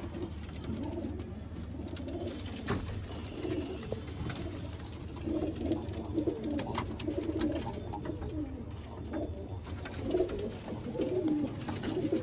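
Domestic pigeons cooing: repeated low, warbling coos, on and off, coming more often in the second half.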